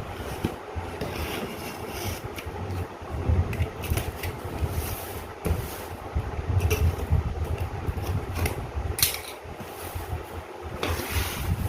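A cardboard box and its packing being opened and handled: irregular rustling, scraping and tearing sounds with low bumps and knocks.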